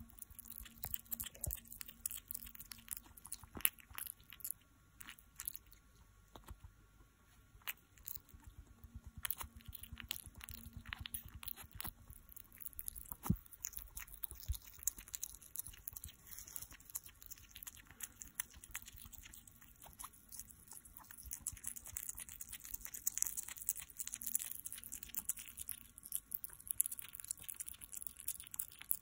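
Hedgehog chewing a boiled quail egg: a steady run of small, quick chewing clicks from its jaws.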